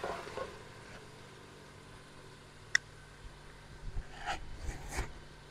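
Mostly quiet. One sharp click about halfway through, then a few short knocks and scrapes of a wooden spoon against the metal cooking pot near the end.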